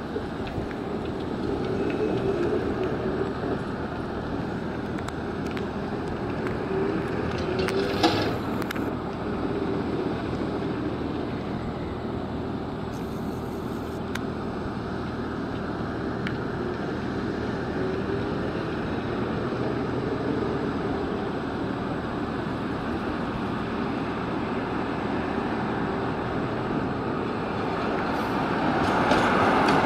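Electric tram and trolleybus running on a city street: a steady hum and rolling noise with a single sharp knock about eight seconds in, growing louder near the end as the tram comes closer.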